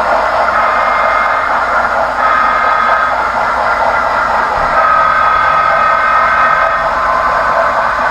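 A model train of refrigerator cars rolling past close by: a steady rolling rumble of wheels on the rails, with thin squealing tones that come and go and drift slightly in pitch.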